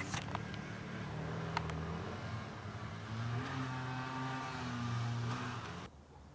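Motorcycle engine running steadily, a little louder from about three seconds in, then cut off abruptly near the end.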